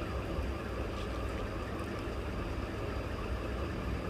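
Steady low background rumble, with a few faint ticks about a second in as a pen marks dots on paper along a ruler.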